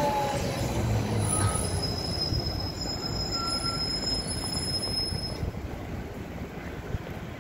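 Articulated Van Hool trolleybus moving off past the camera among street traffic. It gives a high-pitched steady squeal for a few seconds, starting about a second in.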